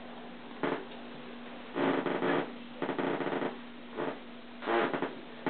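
Bathwater splashing in several short bursts as a cat moves and paws in a filled bathtub, over a steady low hum.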